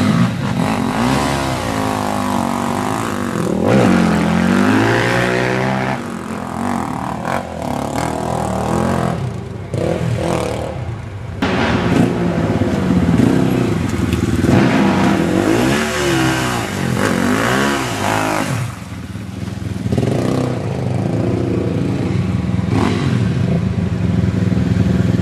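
Quad ATV engines revving up and down on a muddy trail, the pitch rising and falling again and again as the throttle is worked.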